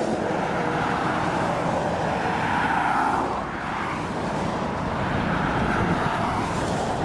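Road traffic on a highway: a steady rush of tyres and engines, with vehicles passing twice.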